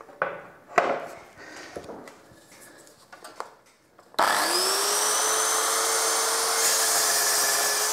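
Plunge-cut circular saw on a guide rail: a few light clicks and knocks as it is handled on the rail, then about halfway through the motor starts abruptly, its whine rising briefly and then running steady as the blade cuts through a melamine board.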